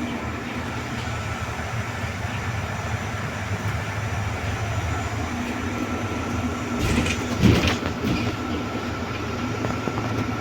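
A bus running steadily, a low engine drone with a faint steady whine over it, and a few short knocks and rattles about seven seconds in.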